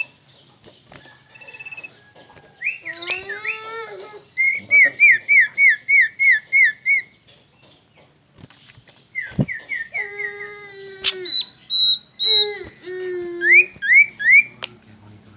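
Male sirtu songbird in full song: bursts of rapid, repeated downslurred whistled notes, several runs of about half a dozen to eight quick notes broken by short pauses.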